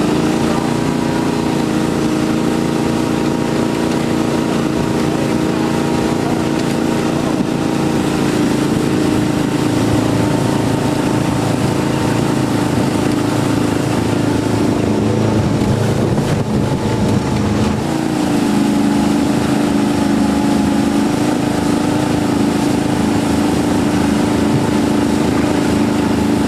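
A Hydrodyne ski boat's V8 engine running steadily under way. About fifteen seconds in, its note wavers and drops for a few seconds, then settles back to a steady pitch.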